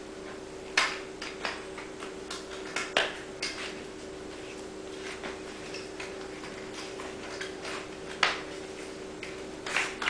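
Irregular sharp clicks and light knocks of a road bike tire's bead being pushed by hand over the edge of the rim, as the tire is fitted onto the wheel.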